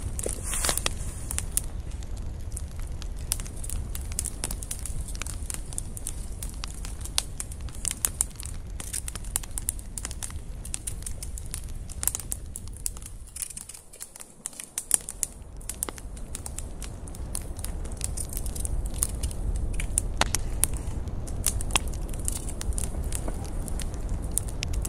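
Wood campfire crackling, with frequent sharp pops over a steady low rumble of the flames; the rumble fades briefly about halfway through.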